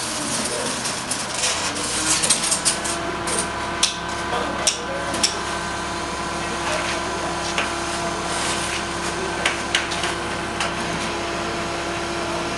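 Forklift running with a steady hum and whine, its forks coming down by the end. Sharp knocks and scrapes from stiff panels and boxes being handled overhead, mostly in the first five seconds and a few more later.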